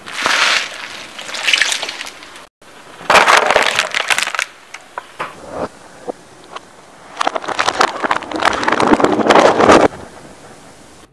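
A car tyre crushing small objects such as a bag of water beads and a boxed candle set on concrete: crackling, crunching noise in three bursts with short pauses between them.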